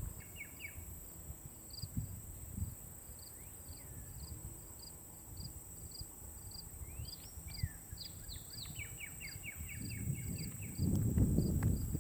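Late-summer evening insect chorus: a steady high drone with cricket chirps pulsing evenly about two to three times a second. A bird calls a short run of quick notes at the start and a longer run of rising and falling notes from about seven seconds in. A low rumbling noise builds near the end.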